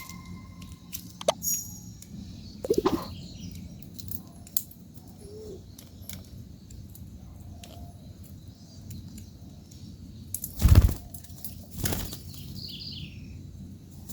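Birds' wings flapping at a feeder: a loud flurry about ten and a half seconds in and a shorter one about a second later, among small clicks and faint chirps.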